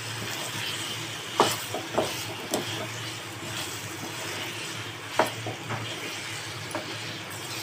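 A spatula stirring chicken pieces through a thick yogurt-and-pepper masala in a pan, scraping and knocking against the pan several times at irregular intervals. A steady low sizzle of the chicken frying on a low flame runs underneath.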